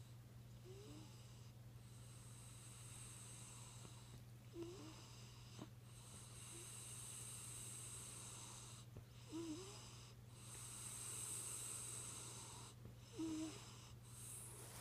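Toy poodle fake-snoring: faint, slow breaths with a short snore about every four seconds. The dog puts on the snoring to draw its owner over.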